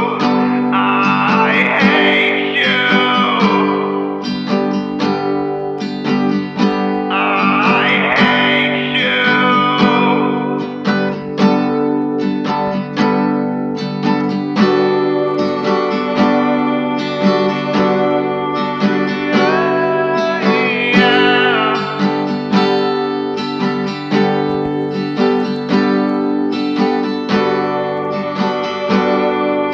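Emo indie rock song in an instrumental stretch led by guitars, with notes sliding and bending in pitch a few times.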